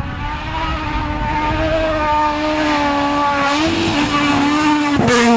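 Suzuki Swift rally car engine held at high revs under full throttle, with a brief pitch wobble about three and a half seconds in. Near the end it is at its loudest, then its pitch drops sharply.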